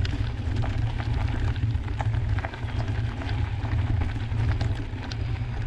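Mountain bike rolling over a loose gravel track: tyres crunching stones, with many small clicks and rattles from the bike, under a steady low rumble of wind and vibration on the bike-mounted camera's microphone.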